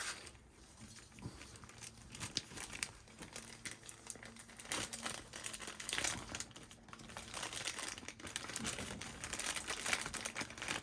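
Crinkling and rustling of the wrapping around a new chrome car badge as it is handled: a run of irregular crackles.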